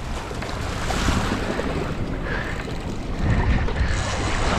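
Wind rushing over the microphone with choppy sea water around a small fishing boat, the low rumble gusting stronger about three seconds in.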